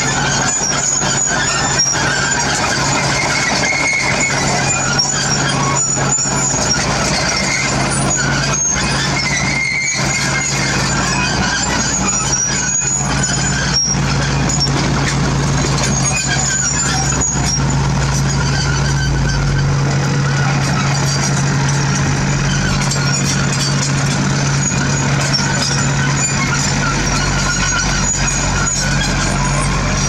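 Diesel engines of asphalt paving machinery running steadily, a continuous low drone under a dense mechanical clatter.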